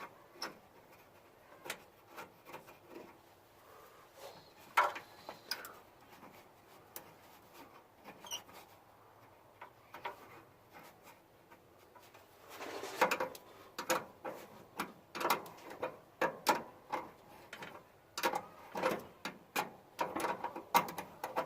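Scattered clicks and clinks of hand tools working the terminal nuts on a truck's starter solenoid, with runs of quick clicking about two-thirds of the way through and again near the end.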